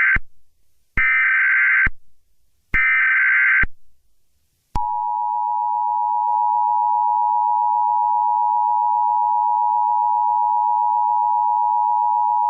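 Emergency Alert System signal: the tail of the first and then two more of the three short buzzing SAME header data bursts, each just under a second long with about a second between them, followed about five seconds in by the steady two-tone EAS attention signal held without a break.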